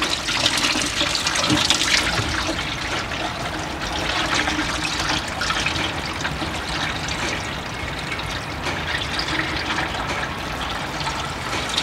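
Engine oil pouring in a steady stream from a tractor's sump drain into a catch pan, some of it running onto the ground.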